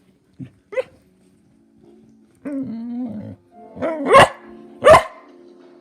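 Pet dog barking loudly twice in quick succession, upset, shortly before the end.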